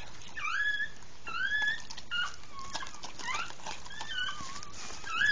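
Wheaten terrier whimpering during whelping: a run of short, high squeaky whines, each rising in pitch and then holding, about one a second, over faint rustling clicks.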